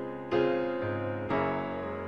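Slow piano accompaniment of a love song between sung lines: one chord struck shortly after the start and another about a second later, each left to ring.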